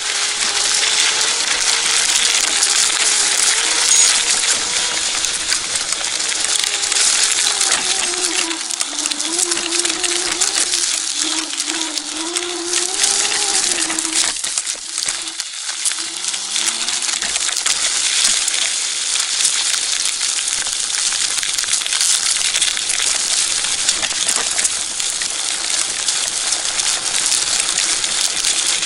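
Dragon GTRV2 electric scooter riding a rough dirt trail: a steady crunching, rattling noise of the tyres and frame over dirt and loose stones, with the motor's whine wavering in pitch as the speed changes. About halfway the whine fades out, then rises again in pitch as the scooter picks up speed.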